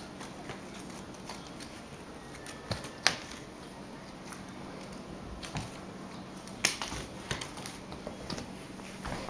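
A pet playing with a bird toy: scattered light clicks and rustles, with two sharper clicks, one about three seconds in and one near seven seconds.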